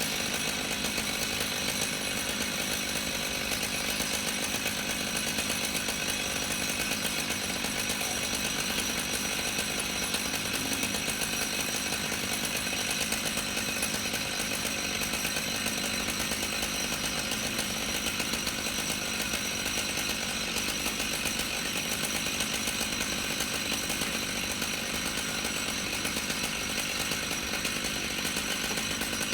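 Chainsaw running steadily at high speed, its pitch holding even throughout.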